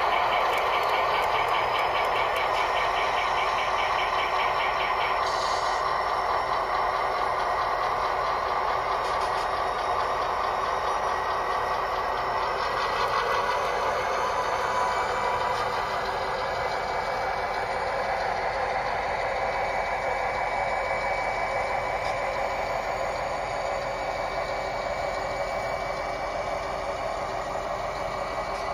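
Model SDIV diesel locomotive's engine sound playing steadily from its onboard speaker as it pulls away, thin and with little bass. A fast, high ringing repeats over the first five seconds.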